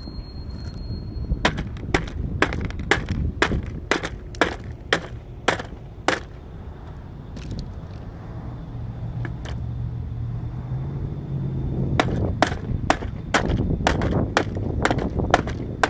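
Hammer blows as a part is being knocked loose from scrap: a run of sharp strikes at about two a second, a pause of several seconds, then a second run.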